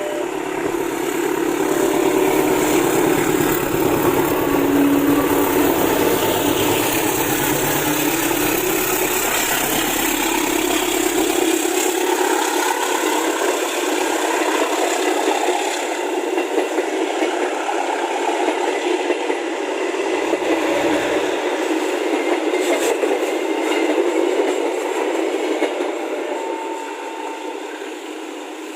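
A train running past at the level crossing, a steady loud rush of wheels and rolling stock. A deep rumble underneath fades out about twelve seconds in.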